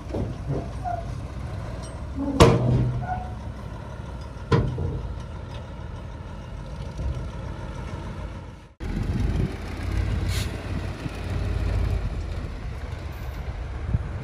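Heavy diesel earthmoving machinery running with a steady low rumble, broken by two sharp knocks in the first few seconds. After a brief dropout just past the middle, the engine rumble comes back louder.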